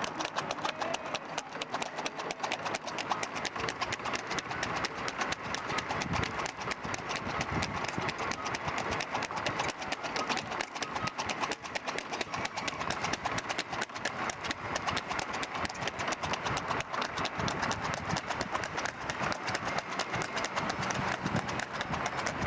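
Hooves of a horse pulling a tanga cart clip-clopping rapidly and steadily on an asphalt road at racing speed.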